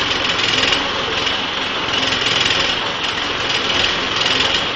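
An engine running steadily, its sound swelling and easing a few times.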